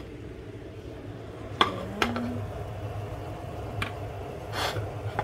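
Kitchenware being handled at the stove: a few sharp clinks of dishes, about a second and a half, two, and nearly four seconds in, and a short rustling scrape near the end, over a steady low hum.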